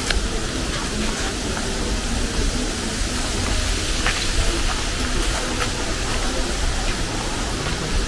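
Steady rushing noise of wind, with a low rumble of wind on the microphone and a few light ticks.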